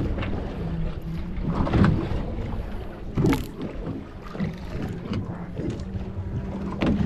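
Wind on the microphone and water against the hull of an offshore fishing boat, over a steady low hum. There is a sharp knock about three seconds in.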